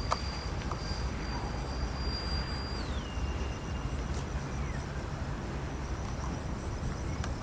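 Electric ducted fans of a Skymaster A-10 model jet in flight: a steady high whine that drops in pitch about three seconds in as the fans are throttled back, then fades. Wind rumbles on the microphone underneath.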